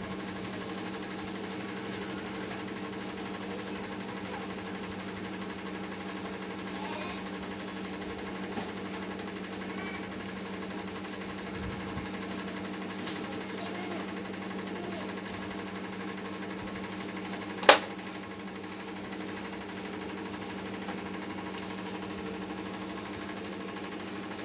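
Steady machine hum with one sharp click about eighteen seconds in.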